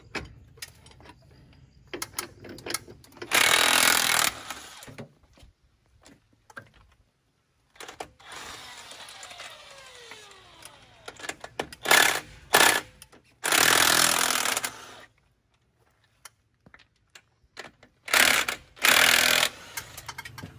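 Impact wrench hammering in several bursts of one to one and a half seconds on the bus's rear wheel nuts, with quieter clinks and a falling whine between bursts.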